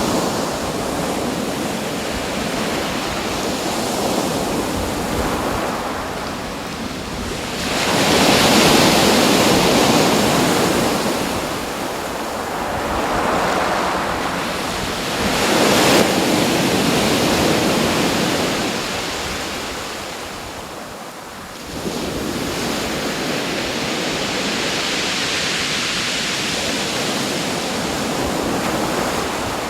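Surf: waves breaking and washing ashore, swelling and ebbing every several seconds, with wind in the background.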